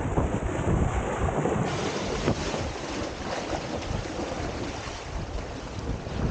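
Wind buffeting the microphone over water rushing and splashing along a windsurf board's hull as it sails fast through choppy sea.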